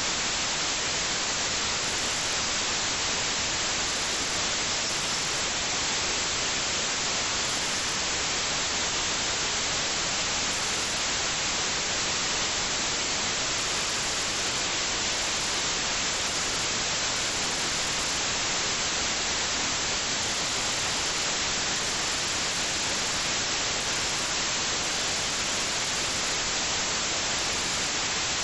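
Steady static hiss, even and unchanging, with no engine note or splashing standing out from it.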